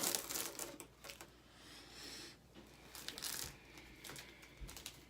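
Plastic snack wrappers crinkling and rustling as the packs are handled, in irregular bursts with a few light clicks and a short smooth sliding hiss.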